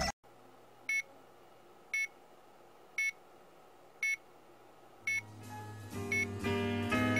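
Five short electronic beeps, evenly spaced about a second apart, then music starts about five seconds in and grows louder.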